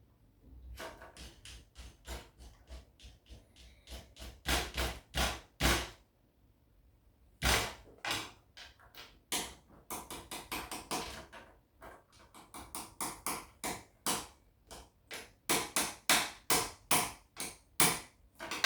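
Hard plastic clicks and knocks in quick, irregular runs, with a short pause about six seconds in: Gundam model-kit parts being handled and snapped together.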